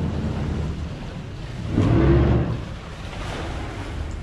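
Azimut motor yacht's engines rumbling and its propellers churning the water as it manoeuvres out of its berth, swelling louder for about half a second around two seconds in, with wind on the microphone.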